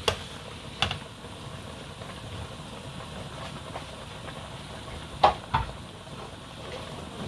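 A knife chopping frozen snail meat on a cutting board: four sharp knocks, two near the start and two about five seconds in. Under them runs the steady hiss of a pot boiling.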